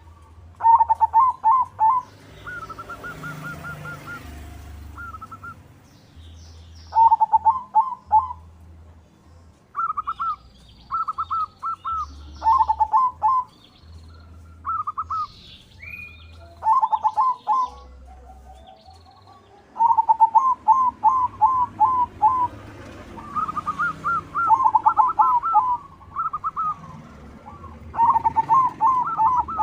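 Zebra dove (perkutut) song: repeated short phrases of quick staccato cooing notes, a phrase every second or two, at two slightly different pitches.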